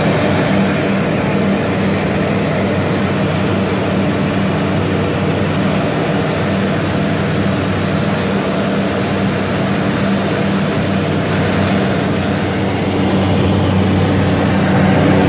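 Bristell light aircraft's piston engine and propeller running steadily in flight, a constant drone heard inside the cockpit. It gets slightly louder near the end.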